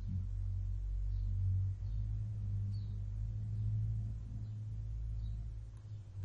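A steady low hum with no speech over it.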